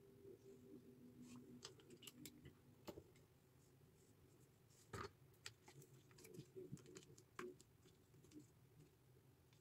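Near silence with faint, scattered clicks and taps from makeup products being handled, the sharpest about five seconds in.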